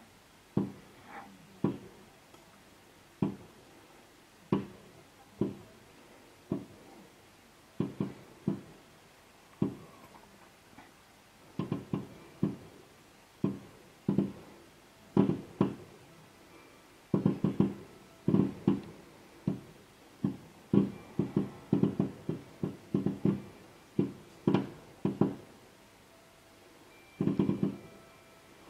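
Aerial fireworks bursting at a distance: a long series of booms, each with an echo trailing off. They come one at a time at first, then in a quick, dense volley from just past the middle, and in another cluster near the end.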